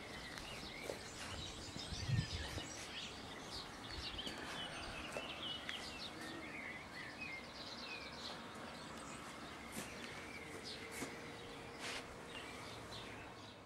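Outdoor background noise with small birds chirping and twittering throughout; a single low thump about two seconds in.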